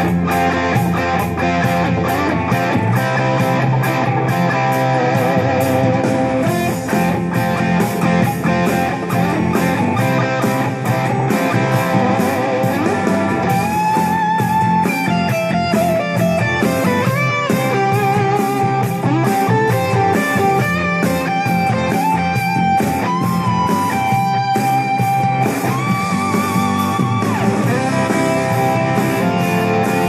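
James Tyler SE DX electric guitar played through a DigiTech GSP1101 preamp and Lexicon MPX1 effects: a lead line of single notes, and from about halfway on long held notes with wavering vibrato.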